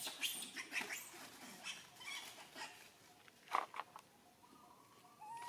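Baby long-tailed macaque crying: a run of short, high squeals, then one loud cry about three and a half seconds in, and a brief whimpering call near the end. The cries are a young monkey's distress calls, typical of a hungry infant wanting milk.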